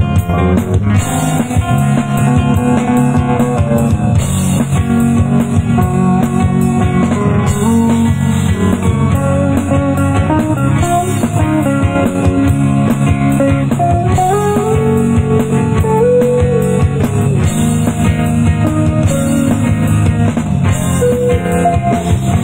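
Live band playing a slow song: electric bass and guitars with a drum beat, a melody line bending up and down about two-thirds of the way through.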